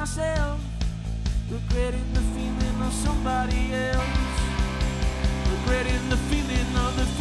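A rock band playing live: electric guitar and bass guitar over a steady beat, with singing. The playing gets fuller about four seconds in.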